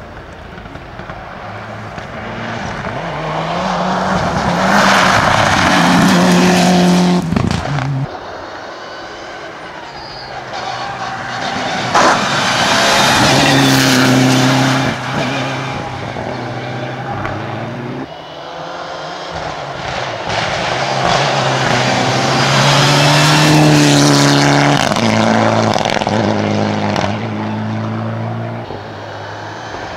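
Three Mitsubishi Lancer Evolution IX rally cars, with turbocharged four-cylinder engines, pass one after another at full throttle. Each engine note swells to a loud peak as the car goes by, with the pitch stepping through gear changes. A sharp crack comes about twelve seconds in.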